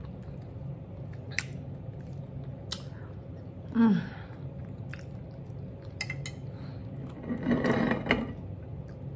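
A person chewing a bite of sirloin steak with closed lips, with small wet mouth clicks, a short falling 'mm' hum about four seconds in, and a louder sound lasting nearly a second a little past the middle.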